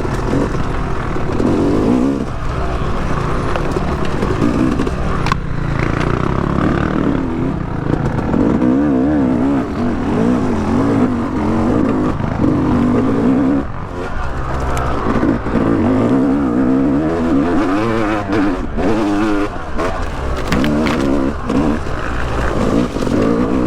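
Yamaha YZ250X two-stroke dirt bike engine revving up and down continuously as it is ridden along a woods trail, heard through a helmet-mounted mic. A few sharp knocks sound about five seconds in and again near the end.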